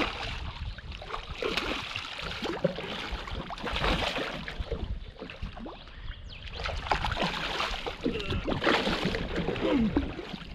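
Water sloshing and splashing at the side of a small fishing boat, in uneven bursts.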